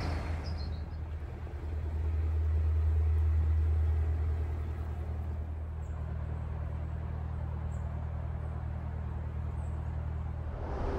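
Narrowboat's diesel engine running steadily under way, a low even hum that swells slightly a couple of seconds in.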